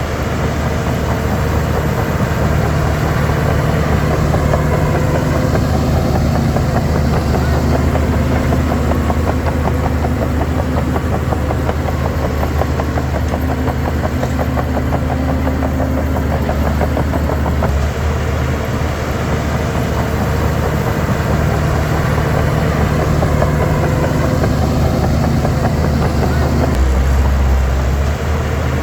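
Shantui DH17 C3 bulldozer's diesel engine running steadily, its pitch and load shifting several times as the machine works, dropping to a deeper note near the end.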